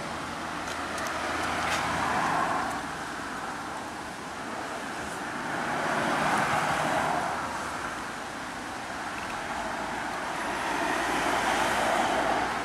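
Road traffic rising and falling as cars pass, in three slow swells, with a few faint crunches from a kitten eating dry kibble.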